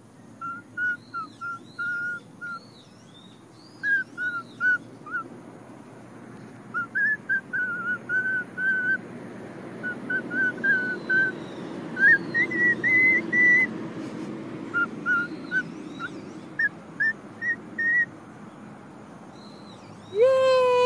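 A tune whistled in short, clear notes, some in quick runs, with faint chirps over it in the first few seconds. Near the end a loud drawn-out call starts, falling slowly in pitch.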